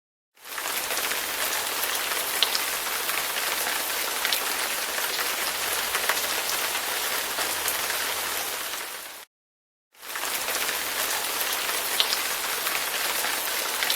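Heavy rain falling steadily, with a few sharper drop ticks; it stops abruptly about nine seconds in and starts again under a second later.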